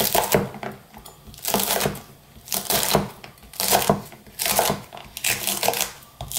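Chef's knife slicing Cheongyang chili peppers on a bamboo cutting board: short runs of quick knife taps against the wood, coming about once a second.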